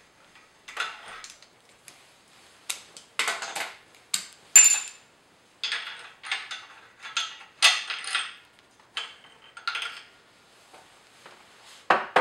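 Steel hand tools, the Time-Sert insert driver and socket extension, clinking and rattling against the cylinder head and aluminium jig as they are drawn out and set down. There are a dozen or so short metallic clicks and scrapes, and the sharpest, about four and a half seconds in, rings briefly on a high note.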